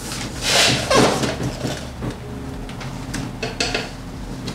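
Duct tape being rubbed and pressed down by hand over a water hose onto a plastic kayak hull: crinkling and rasping, loudest in one longer rub about half a second in, followed by scattered light taps and rubs.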